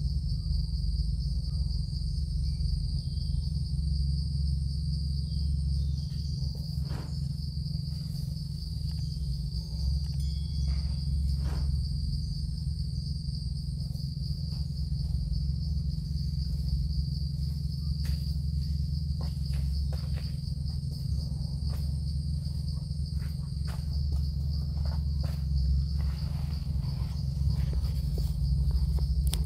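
Insects buzzing in a steady, unbroken high drone over a loud low rumble, with a few faint clicks scattered through.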